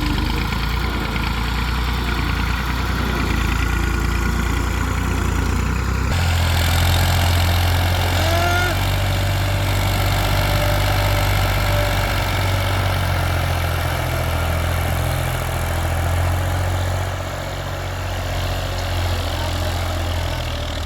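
Heavy diesel machinery engine running steadily; about six seconds in its low hum steps up in pitch and holds at the higher speed.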